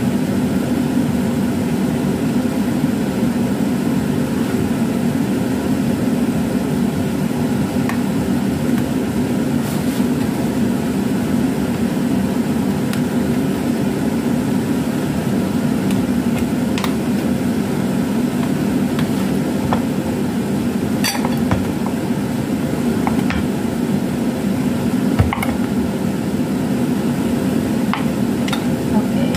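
Kitchen knife cutting a sticky brown-sugar rice cake (kue keranjang) in a plastic tub and on a cutting board, with a few scattered clicks and taps of the blade. A steady low background hum is the loudest thing throughout.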